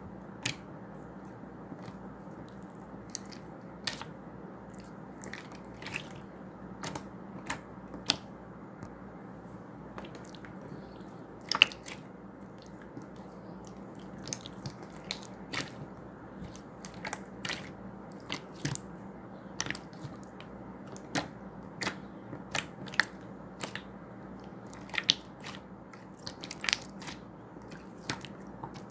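Irregular sharp clicks and crunches, one every second or so, over a steady low hum.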